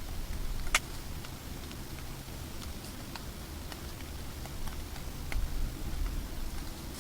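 Outdoor field recording: a steady low rumble with scattered faint ticks and one sharper click about a second in.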